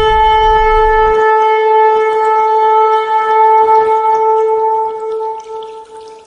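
A shofar blown in one long held note, steady in pitch, that fades out near the end. A low rumble under it stops about a second in.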